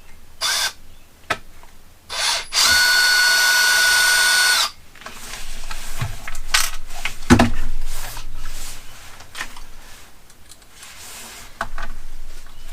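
Power driver with a hex bit running steadily for about two seconds, a few seconds in, to loosen a thread-locked screw. Clicks and light knocks of small tools and parts being handled come before and after it, with one louder knock about halfway through.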